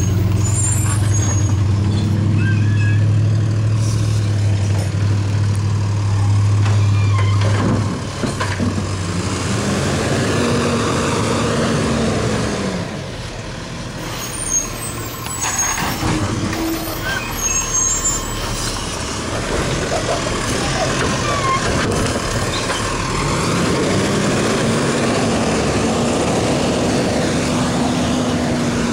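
Garbage truck's diesel engine running at a raised, steady speed, then twice revving up, holding and dropping back, as the engine speeds up to drive the truck's hydraulics for a cart pickup.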